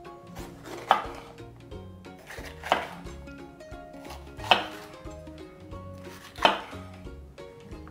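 Chef's knife slicing through a green bell pepper and knocking on a wooden cutting board: four sharp knocks, a little under two seconds apart.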